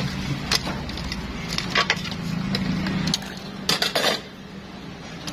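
Long metal ladle knocking and scraping against a large metal cooking pot: several sharp clinks spread over a few seconds, with a longer scrape near the end. A low steady hum underneath stops about three seconds in.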